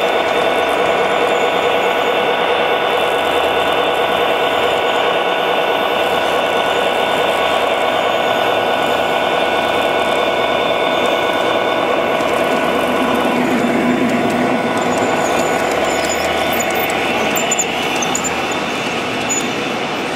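G-scale model diesel locomotive running on the layout track, a loud, steady mechanical whine with several held tones. It eases a little near the end.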